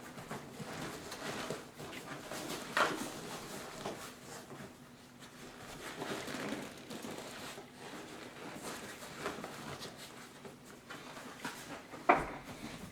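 Rustling, rubbing and scraping of a seat cover and batting being worked over seat foam by hand, with a short louder scrape about three seconds in. There is a single sharp knock near the end.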